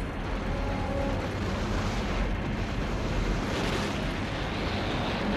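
Torrent of floodwater rushing through a tunnel: a dense, steady rush of noise that grows louder a little past halfway.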